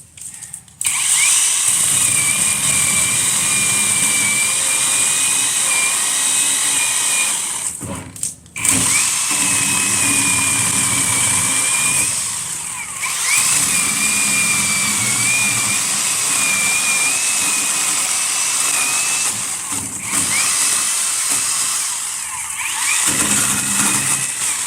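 Battery-powered chainsaw cutting small logs: the electric motor's steady high whine with the chain biting through wood. The motor winds up at the start of each cut, stops briefly about eight seconds in, eases off a few times between cuts and stops shortly before the end.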